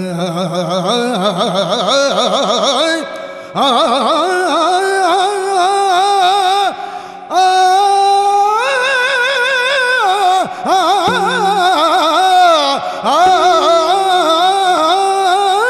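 Yakshagana bhagavata's high sung voice in long, heavily ornamented phrases with a wide wavering pitch, over a steady drone. The phrases break off briefly about three, seven, ten and thirteen seconds in.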